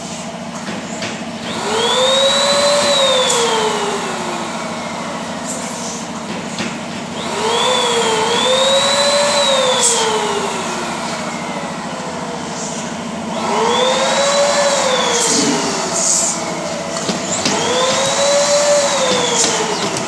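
Compressed air rushing through the nozzles of a pneumatic balloon-printing machine, four times, each rush carrying a whistle that rises and then slowly falls over about three seconds. Under it runs a steady machine hum.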